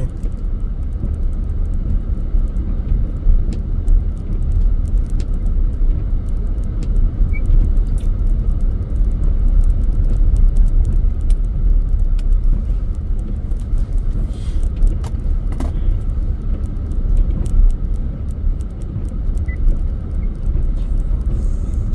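Steady low rumble inside a pickup truck's cab as it drives through deep snow, with a few faint ticks.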